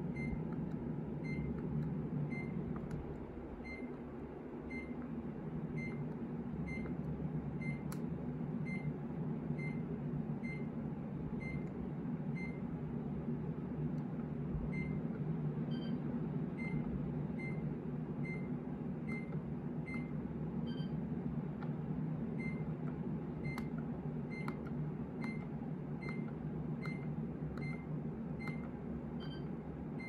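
Short, high electronic beeps, one about every two-thirds of a second with a few pauses, while a Mitsubishi Kirigamine air conditioner is operated by its remote control. A few higher two-tone beeps and faint clicks are mixed in, over a steady low hum.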